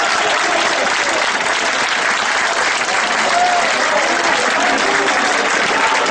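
Large football crowd cheering in a stadium: a steady, dense wall of crowd noise with a few voices and whistles rising faintly out of it.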